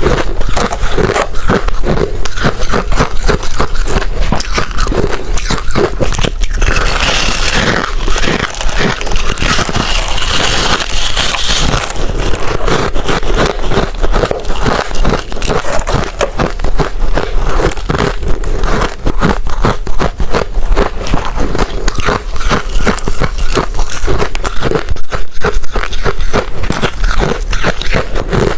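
Hard ice being bitten and chewed close to the microphone: a dense, continuous run of sharp cracking crunches. About a quarter of the way in there is a brighter, hissier crackle lasting a few seconds.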